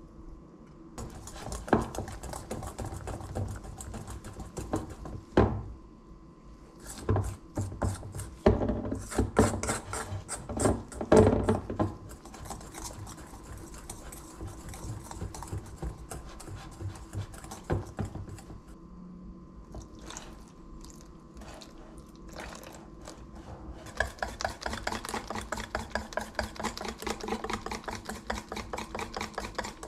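Wire whisk beating pancake batter in a stainless steel bowl: the wires scrape and clink against the metal. There is a run of louder clinks around the first third, and a fast, even rhythm of strokes near the end.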